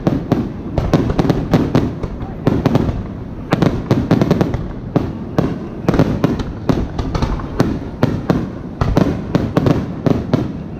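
A rapid barrage of aerial firework shells bursting, several sharp bangs a second over a continuous low rumble.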